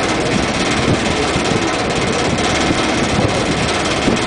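Ferry boat's engine running steadily while the boat is underway, under a constant rushing noise.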